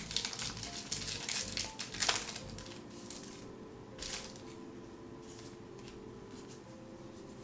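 Pokémon booster pack's foil wrapper being torn open and crinkled: a quick run of crackles and rips over the first two to three seconds, the loudest about two seconds in, and one more rustle about four seconds in. Soft background music plays underneath.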